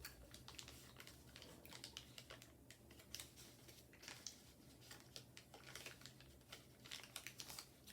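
Faint, irregular small clicks and crackles of someone chewing a piece of caramel-filled chocolate bar, over a low room hum.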